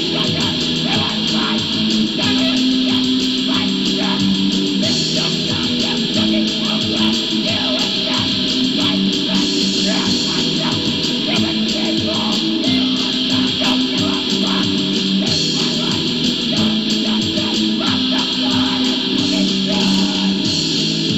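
Rock song led by guitar, with a steady beat of sharp hits under sustained chords.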